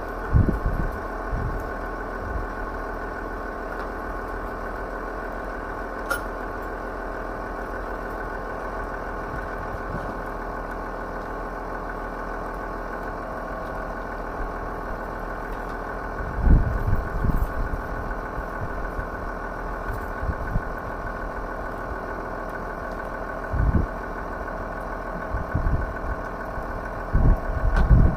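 Quadcopter drone's motors and propellers humming steadily at an even pitch. A few short low rumbles of wind buffet the microphone, about two-thirds of the way through and near the end.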